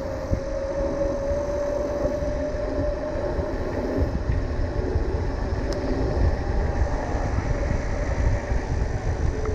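Mountain bike rolling fast downhill on asphalt: wind rumbling on the microphone, with a steady tyre hum.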